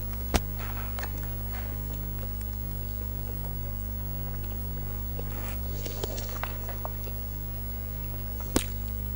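Tableware sounds during a meal: two sharp clicks of utensils against a plate, one just after the start and one near the end, with a few softer ticks and scrapes in between, over a steady low electrical hum.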